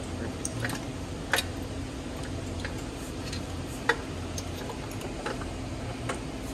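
Scattered sharp clicks and light metallic taps of hand tools and fasteners as a dirt bike's frame is being stripped, about eight in all, the loudest about a second and a half in and again near four seconds, over a steady low background hum.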